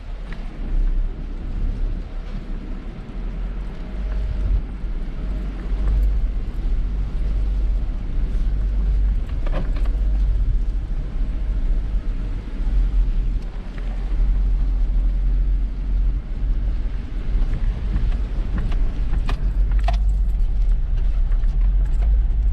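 Jeep Wrangler driving slowly along a dirt track, heard from inside the cab: a steady low engine and road rumble, with a few short clicks and rattles from the body and loose items.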